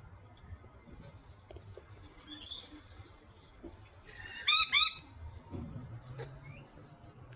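Parrot calling: a faint high call near the middle, then two loud, short calls in quick succession about four and a half seconds in, with faint scattered clicks between.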